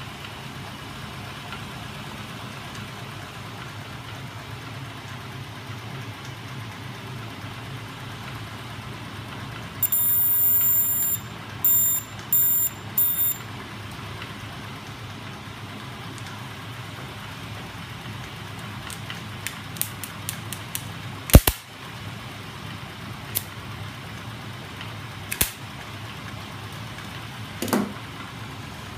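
Small DC electric motors driving a homemade magnet-and-crankshaft mechanism, running steadily with a low hum. About ten seconds in come four short bursts of high-pitched electronic beeping. Later there are a few sharp clicks, one much louder than the rest.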